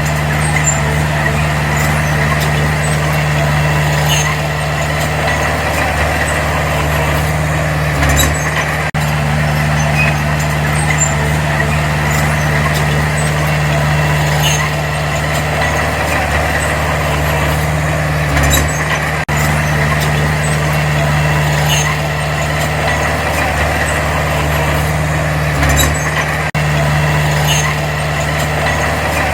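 Heavy diesel engine of earthmoving equipment running steadily at an even speed, with light metallic clinks and three brief dull thumps.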